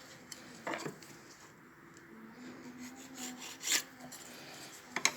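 Pencil marking lines down the sides of a small square wooden handle blank: a few short scrapes on the wood, the sharpest nearly four seconds in and two more near the end.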